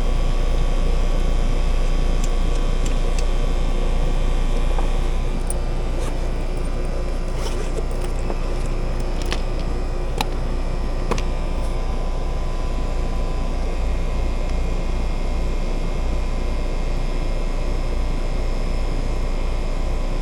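Heat pump outdoor unit running steadily in cooling mode, its compressor and condenser fan giving a low, even hum. A few light clicks and taps sound over it midway.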